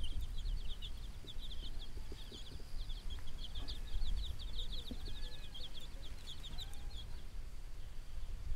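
A domestic hen clucking quietly, over a rapid, high chirping that stops about seven seconds in.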